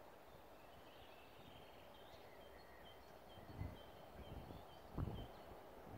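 Faint bird song, a series of short high chirps repeated again and again over quiet outdoor ambience, with two low thumps in the second half.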